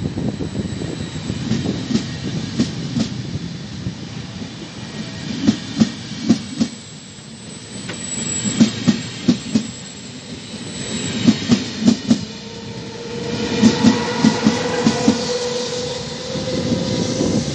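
Vivalto double-deck coaches rolling past, their wheels clicking over rail joints in tight groups of three or four as each pair of bogies passes, the groups coming slightly closer together as the train picks up speed. A steady electric whine from the E464 locomotive's traction equipment joins in near the end as the locomotive draws level.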